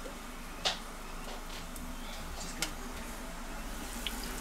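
Two sharp clicks about two seconds apart, with a few fainter ticks, as the lid of a G3Ferrari Delizia electric pizza oven is handled and lifted to check the pizza baking on its stone. A faint steady low hum runs underneath.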